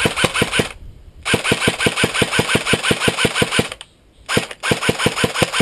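Airsoft gun firing on full auto in three bursts, a short one, a longer one of about two and a half seconds, then another short one, at roughly nine shots a second.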